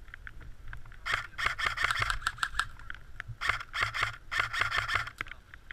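Airsoft electric guns firing: a few single clicks, then two long full-auto bursts of rapid rattling shots, each lasting about a second and a half.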